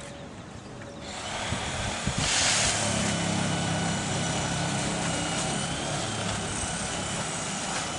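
A motor runs steadily in the background, coming up about a second in, with a brief hiss a little after two seconds.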